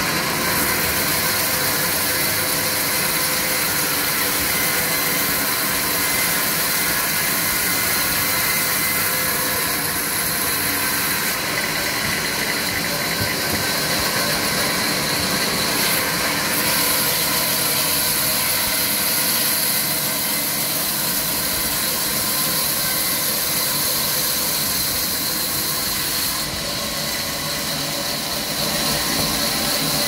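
Sawmill saw running steadily: a constant mechanical hum with a strong, even hiss over it.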